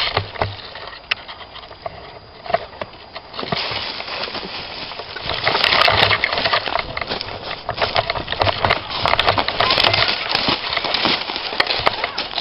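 Close rustling and scraping with scattered sharp clicks and knocks. It grows louder and denser about three and a half seconds in.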